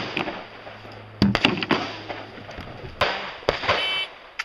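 Three sharp cracks, about a second in, at three seconds and half a second later, each trailing off in a short echo: gunshots.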